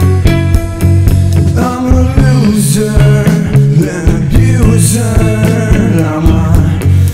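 Indie/alternative rock song: drums, bass and electric guitar playing together, with a voice singing over them from about two seconds in.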